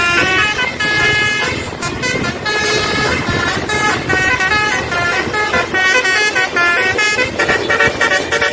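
A tour bus's Basuri telolet horn, a multi-tone musical air horn, playing a quick melody of short high notes over traffic noise.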